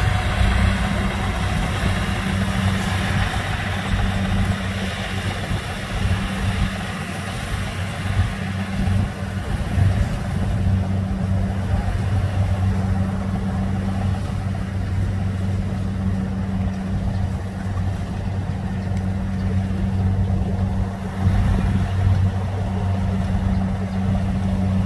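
Rice-harvest machinery engines running steadily in the field, a constant low drone with no change in speed: first a tracked rice-bag cart, then a Kubota DC70 combine harvester cutting rice. The sound is brighter and noisier for about the first ten seconds, then duller.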